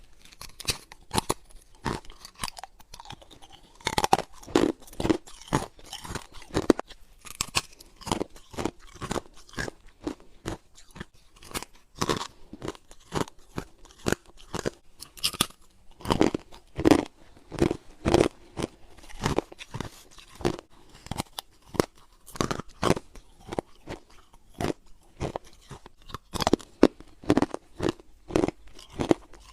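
A person biting and chewing freezer frost and humidifier-tray ice: a steady run of crisp crunches, about two a second.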